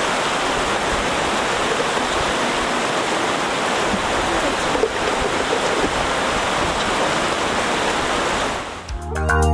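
Steady rushing of flowing water, an even noise like a stream. Music with steady notes and a beat comes in near the end.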